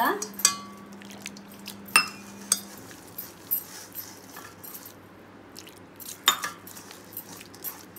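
Chilli and turmeric powder being hand-mixed with a little water into a paste in a stainless steel bowl: irregular clinks of metal bangles and fingers against the steel, with soft scraping. The sharpest clinks ring briefly, about two seconds in and again past six seconds.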